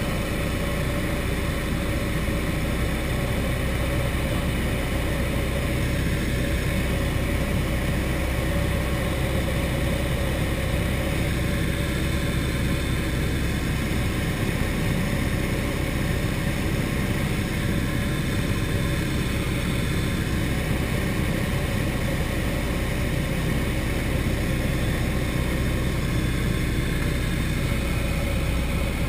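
Turner T-40 light aircraft's piston engine and propeller droning steadily in level flight, heard from inside the cockpit.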